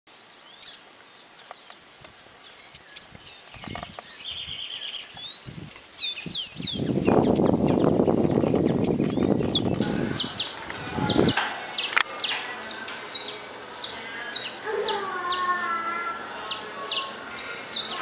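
Saffron finch singing: a run of short, sharp chirps and quick down-slurred notes, coming thicker in the second half. From about 7 to 11 seconds a loud rushing noise lies under the song and cuts off suddenly.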